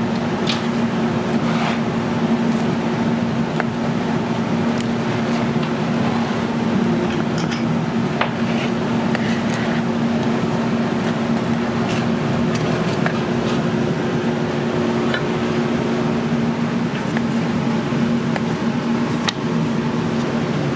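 Steady drone of commercial kitchen ventilation with a low, even hum. Now and then a faint click of a knife and tongs against a plastic cutting board as a porterhouse steak is carved.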